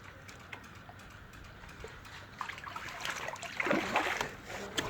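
Water splashing and trickling, with scattered small knocks, getting louder and busier in the second half.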